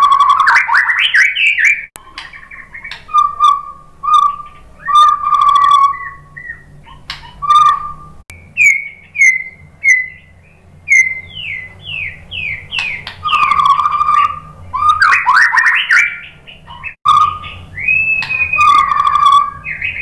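White-rumped shama singing a varied, loud run of whistled phrases with short pauses between them. Around the middle comes a string of about nine quick down-slurred notes, followed by rapid rising sweeps.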